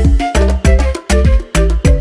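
Background music with a strong, steady beat, heavy bass and percussion.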